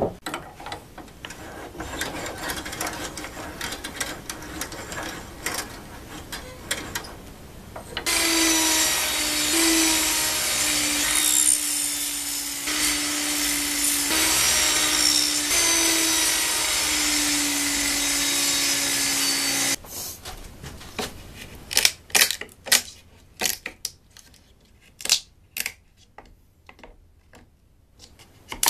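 Table saw cutting a groove along a board: the motor runs with a steady hum whose pitch sags several times as the blade takes the load, then stops abruptly. Near the end come sharp, irregular taps and scrapes of a chisel cleaning out the groove by hand, after some quieter handling of the wood at the start.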